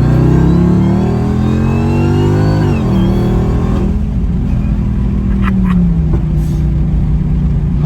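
Dodge Hellcat's supercharged V8 accelerating hard. The pitch climbs for about three seconds, drops sharply at an upshift, climbs again, then eases off and settles to a steady run.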